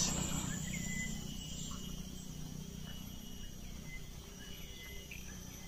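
Quiet outdoor ambience: a faint steady insect buzz over a low steady hum, with a few faint short chirps.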